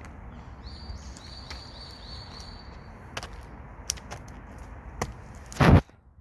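Outdoor background noise with a high, steady trill lasting about two and a half seconds and scattered sharp clicks. A loud, brief knock comes near the end, and then the sound cuts off.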